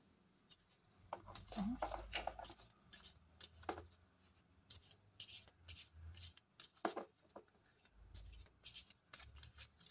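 A small deck of oracle cards being shuffled by hand: quiet, irregular flicks and clicks of card stock sliding and tapping together, with a low rumble of handling. A few faint, brief murmurs of voice come in between.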